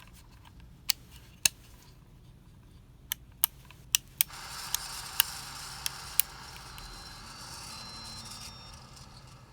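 Casablanca Spirit of Saturn ceiling fan with bad bearings: about ten sharp clicks and taps, then from about four seconds in a hissing, grinding rush with faint high squeals that fades near the end, the sound of its worn bearings.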